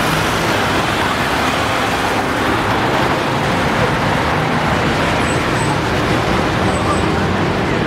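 Steady road traffic of cars, taxis, vans and double-decker buses driving past on a busy city street.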